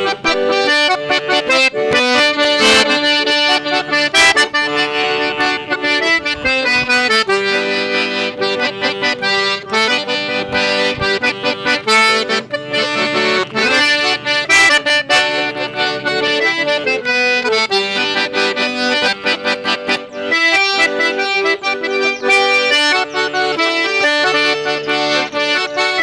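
Accordion (sanfona) playing a forró tune: a melody of changing notes over steady lower held notes.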